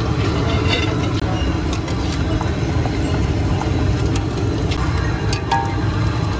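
Food frying in hot oil in a large iron kadai over a steady low rumble, with a few sharp clicks of a metal spatula against the pan.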